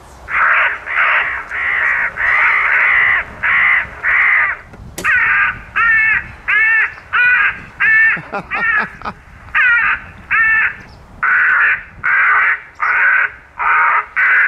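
A crow-and-jackdaw scarer's horn loudspeaker playing recorded corvid alarm calls: a run of loud caws, about two a second, with a short pause a little past halfway. The warning calls are broadcast to drive crows and jackdaws away.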